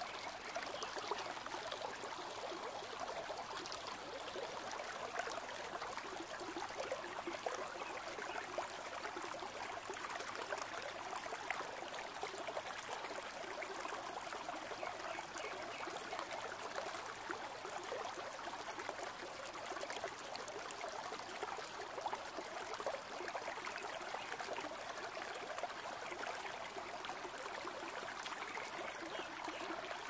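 Shallow forest stream trickling over pebbles and stones, a steady sound of running water.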